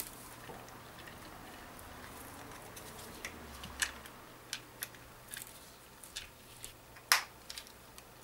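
Plastic case of an RMG-1 tape-head demagnetizer being handled and pressed together by hand: scattered light clicks and taps, the sharpest about seven seconds in.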